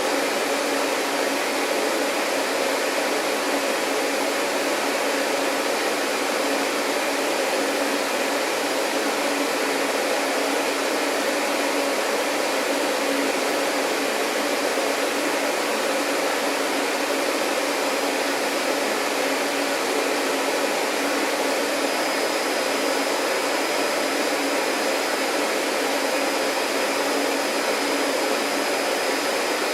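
Vacuum cleaner running steadily, a constant whooshing hum with no change in pitch or level. A faint, thin high whine joins about two-thirds of the way through.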